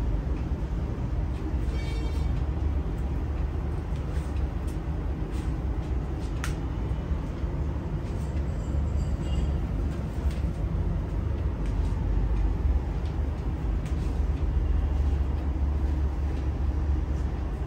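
Steady low rumble of background road traffic, with a few faint clicks and short faint high tones.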